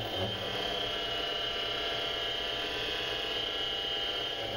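A 7x16 mini lathe parting A2 tool steel with a narrow 0.03-inch carbide grooving tool taking small pecks: a steady machining sound with a high tone ringing through it. It is a vibration sound, coming from the tool slide being mounted on risers and cross members on the lathe bed, less rigid than the stock tool post.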